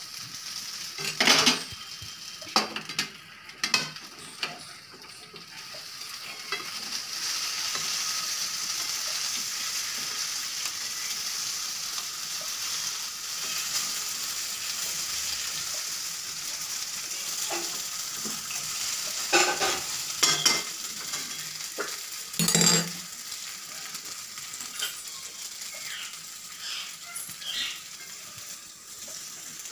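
Dhokla pieces sizzling in hot oil in a metal kadhai while a wooden spatula stirs them, with sharp knocks and scrapes of the spatula against the pan. The knocks come in a few clusters near the start and about two-thirds of the way through, over a steady sizzle.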